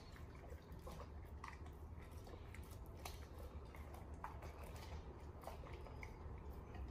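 A large dog eating raw meat and licking its plate: faint wet chewing and licking with scattered small clicks.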